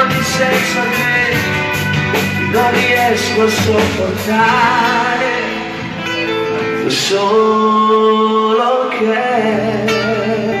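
A man singing into a microphone over loud amplified backing music, holding long notes near the middle.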